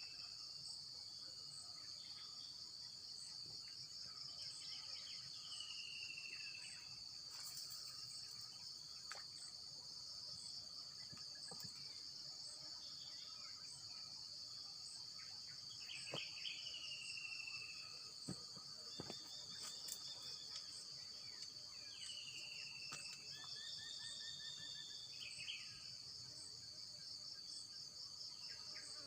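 A steady chorus of insects makes a high, finely pulsing drone. Over it a bird repeats a short falling whistle every few seconds and gives a few quick trills near the end, with occasional faint clicks.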